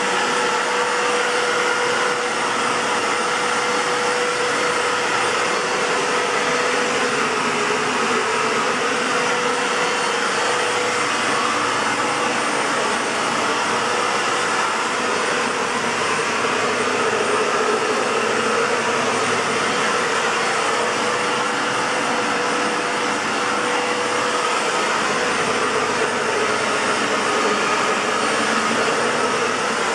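Aerus Lux 5500 (C152C) Electrolux canister vacuum cleaner running steadily: an airy rushing hiss with a steady mid-pitched motor whine that wavers slightly. Its motor has a bad bearing, in the owner's words.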